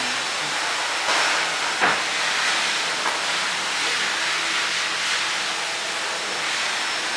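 A steady, loud hiss with a faint thin high whine above it, and one short knock about two seconds in.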